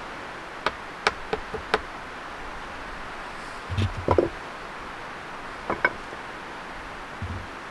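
Irregular wooden knocks: a quick run of sharp taps about a second in, heavier dull thumps around the middle, then two more taps and a last thump near the end, over a steady background hiss.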